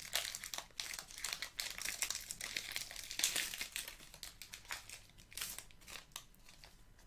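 Foil wrapper of a Pokémon card booster pack crinkling as it is torn open and handled. Dense crackling for about four seconds, then a few scattered crinkles that die away near the end.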